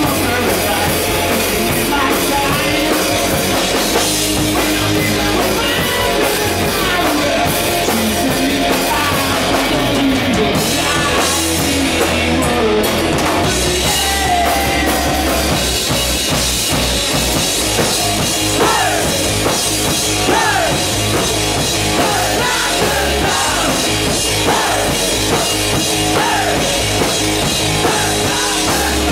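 Hard rock band playing live and loud: distorted electric guitars, bass and a drum kit, with a male singer.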